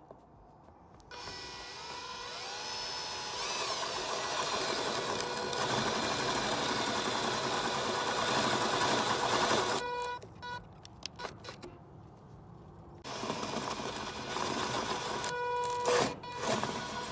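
Power drill running in two long bursts, the first about nine seconds and the second about four, with short blips between them. Its motor whine shifts in pitch as the speed changes.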